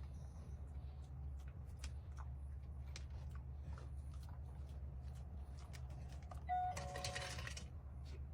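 Treat-dispensing dog toy: about six and a half seconds in, a short electronic tone and a rattle lasting about a second as it dispenses. Underneath runs a steady low hum with a few faint clicks.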